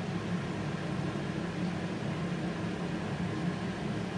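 Steady low mechanical hum, like a fan running, without a break.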